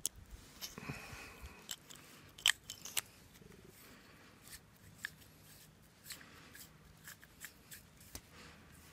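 Plastic garden-hose connector being screwed and fitted together by hand: scattered sharp plastic clicks and snaps, with a brief rasp of the threads about a second in and the loudest click about two and a half seconds in.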